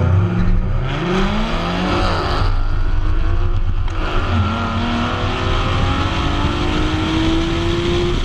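Procharged 3.7 L V6 Ford Mustang accelerating hard at full throttle down a drag strip. The engine note climbs, drops at a gear change about four seconds in, then climbs slowly again with a higher whine rising alongside it. This is a pass on which the car wheel hopped violently all through second gear.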